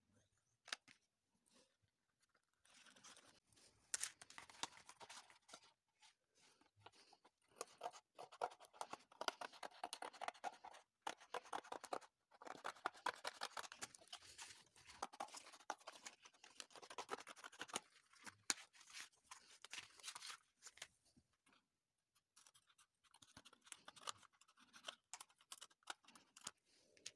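Faint scratching and rustling of wooden popsicle sticks and cardboard being handled and pressed down on a tabletop, with scissors cutting cardboard near the end.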